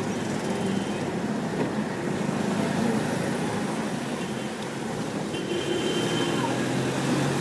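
Steady engine and road noise of a moving car, heard from inside its cabin, with the traffic around it.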